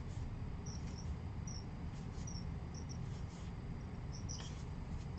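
Quiet handling of baseball cards being flipped through, with faint soft clicks and about eight short, high chirps scattered through, over a low steady hum.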